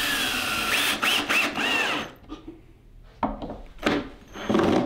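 Cordless drill boring into the base of a mule deer antler fitted to a foam mannequin. The motor's whine dips and rises in pitch as the bit bites, runs for about two seconds, then stops. A few short knocks and handling sounds follow.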